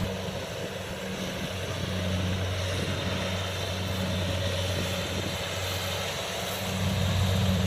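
Kubota DC70 combine harvester's diesel engine running steadily with a constant low hum and a wash of mechanical noise over it, a little louder near the end.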